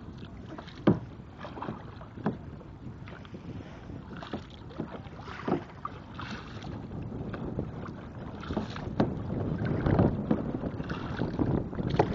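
Kayak paddling: paddle strokes splashing in the water, with irregular sharp knocks, the loudest about a second in, over wind buffeting the microphone.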